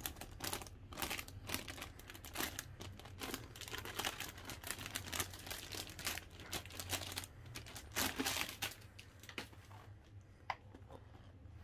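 Thin clear plastic protective film crinkling and rustling in irregular bursts as it is peeled and pulled off a new laptop. The crinkling dies down near the end, with one sharp tick.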